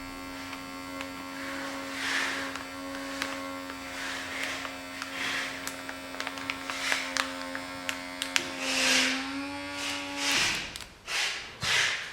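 Handheld rechargeable vacuum sealer's small electric pump motor running with a steady hum, drawing air out of a bag, with recurring hissy bursts. Its pitch steps up slightly shortly before the motor stops about ten seconds in, followed by a few quick rustles and clicks.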